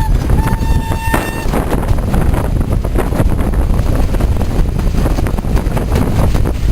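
Train whistle giving two short, steady, single-pitched blasts in the first second, followed by a loud rumble with wind buffeting the microphone.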